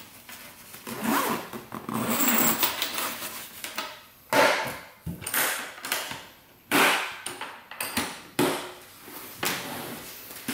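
Zippers on a nylon padded case being pulled shut in several separate runs, each a short rasping stroke, along with rustling and knocks from handling the case.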